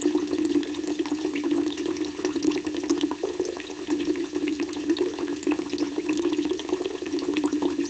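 Fish grilling: a steady sizzle of fat with many small crackling pops and a steady low hum beneath.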